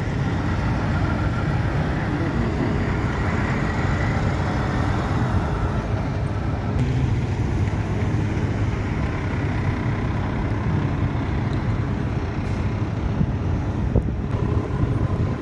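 Heavy diesel truck engines running steadily.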